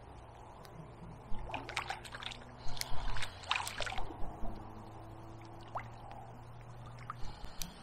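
Water splashing and trickling in quick irregular bursts, a busy run of about three seconds starting just over a second in and a few more splashes near the end, over a steady low hum.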